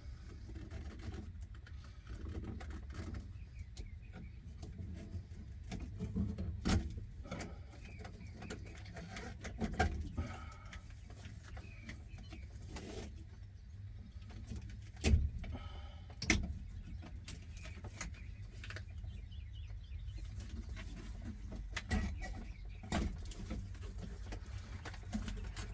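Scattered clicks, knocks and rustling of hands working wiring plugs and harness loose under a car's dashboard, over a steady low hum.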